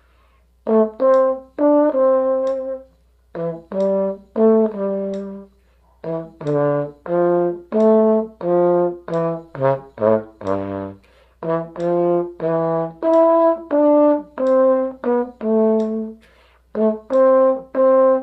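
Slide trombone playing a simple melody an octave above as written, one separate note after another, with a quick falling run of notes down to low notes about halfway through.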